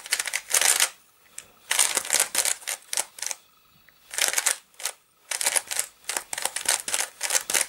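Fisher Cube, a plastic 3x3 shape-mod puzzle, being turned quickly by hand: fast runs of clicking layer turns in four bursts with short pauses between.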